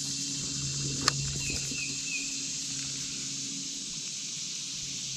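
A spinning reel is cast and cranked. About a second in there is a single sharp click, the bail snapping shut, over a steady high hiss and low hum of outdoor background. A few short chirps, likely a bird, follow about two seconds in.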